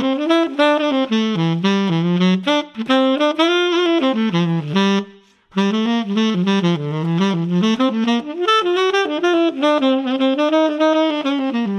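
Tenor saxophone played through a BetterSax Burnin' mouthpiece: a single melodic line of quick, mostly short notes in the instrument's middle range, broken by a short pause for breath about five seconds in.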